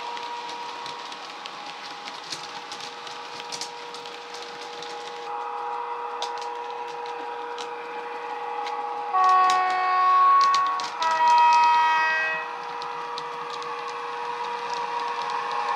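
DCC sound decoder in a Hornby Class 92 electric locomotive model, its speaker playing a steady electric traction whine, with two loud horn blasts of different pitch about nine and eleven seconds in. Scattered light clicks from the model running on the track.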